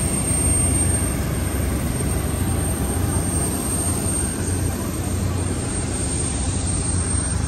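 Aircraft engine running steadily, a continuous low rumble.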